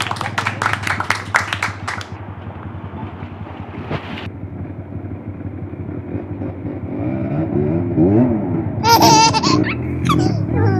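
Dirt bike engine running steadily, then revved up and back down about three-quarters of the way through, with a rapid clatter over the first couple of seconds and people laughing and shouting near the end.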